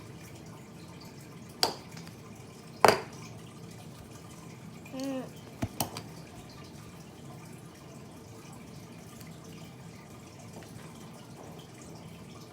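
Sharp knocks on a hard surface over a steady low room hum: two loud ones about two and three seconds in, then a couple of light clicks a little later. A short wavering voice-like sound comes about five seconds in.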